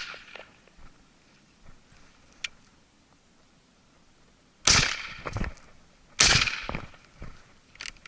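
Two shots from an SKB 505 over-and-under shotgun, about a second and a half apart, each with a short ringing tail.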